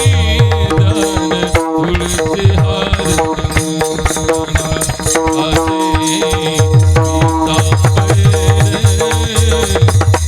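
Kirtan instrumental accompaniment: held harmonium notes over fast, dense drum strokes, with small hand cymbals keeping time. The drumming thins out for a couple of seconds in the middle, then returns fuller.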